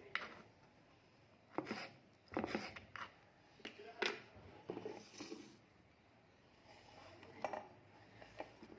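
Light knocks and clinks of kitchen utensils and containers being handled, about a dozen short sharp sounds at irregular intervals with quiet gaps, the quietest stretch near the end.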